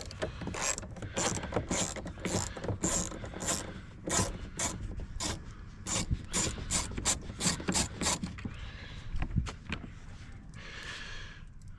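Ratchet wrench fitted with a 7mm socket clicking as it turns a bolt, about three clicks a second, stopping about eight seconds in.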